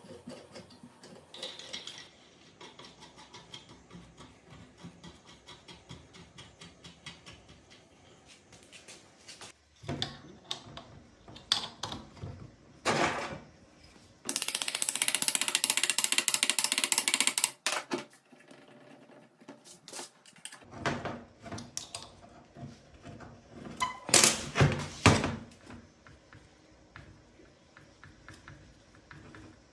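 Workshop work noises: scattered clicks and knocks of tools and parts being handled, with a loud steady burst of about three seconds midway and several heavier knocks near the end.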